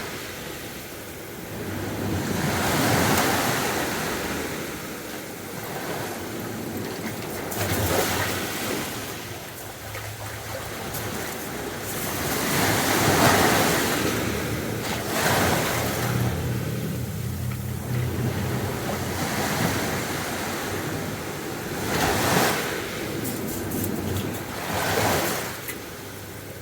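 Sea waves breaking and washing up the beach, the surf swelling and falling back every few seconds.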